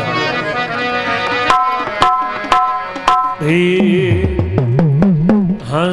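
Instrumental accompaniment of a Rajasthani devotional bhajan: harmonium and keyboard notes with dholak and small hand drums striking about twice a second. In the second half, low notes slide up and down in pitch under the drumming.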